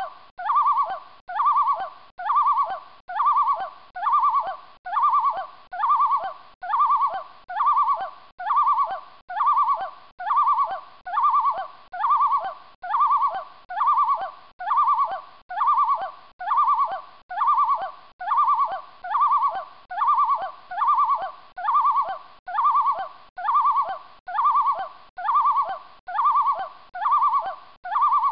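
A pitched, hooting sound repeating evenly about once every second, each with a short wavering glide. It is a looped added soundtrack, with no wind or water noise under it.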